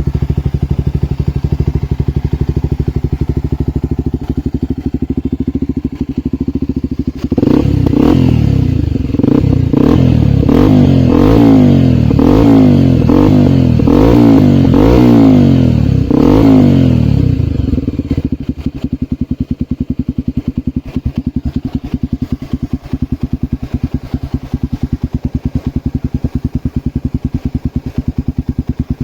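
Honda XR250 Tornado's single-cylinder four-stroke engine through an aftermarket Kimoto Superbike exhaust, idling with a steady pulse. About seven seconds in it is revved in a run of quick throttle blips, roughly one a second, each rising and falling in pitch, then settles back to idle about eighteen seconds in.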